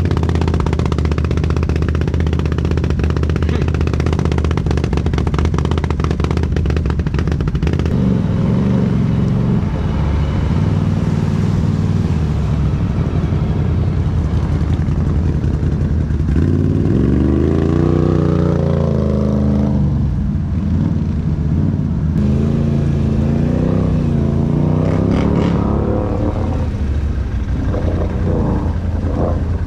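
ATV engine running under throttle, its pitch climbing and falling in long sweeps about halfway through and again a little later as the rider works the throttle.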